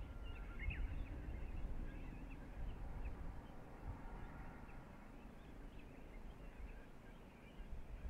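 Outdoor ambience of faint, scattered small bird chirps over a low, uneven rumble of wind on the microphone. The rumble eases through the middle and picks up again near the end.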